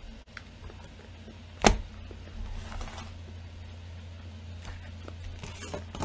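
One sharp knock a little under two seconds in, over a steady low electrical hum, with a few faint handling noises later.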